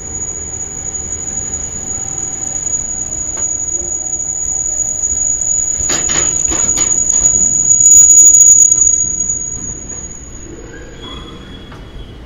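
Freight train's wheels squealing against the rails as it passes: one high, steady squeal that swells, is loudest about eight seconds in, then fades away near the end. A quick run of clanks breaks in about six seconds in.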